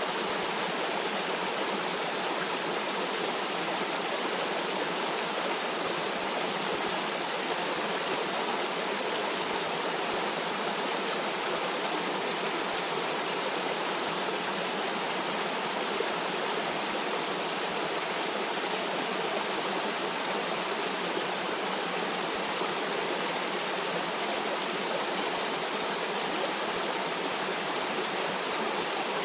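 A stream of water rushing and babbling steadily, a constant even hiss with no changes.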